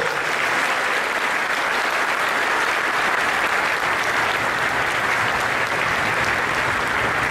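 Audience applauding steadily, a dense even clapping that holds at one level throughout.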